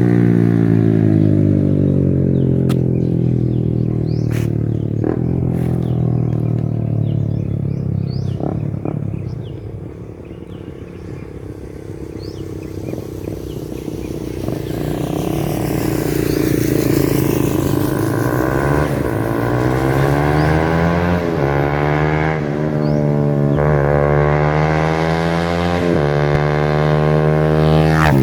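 Suzuki Raider 150 Fi's single-cylinder four-stroke engine through an open muffler with the silencer removed, on a flyby. The note falls and fades as the bike rides off, swells as it comes back and passes, and near the end the revs climb and drop back three times.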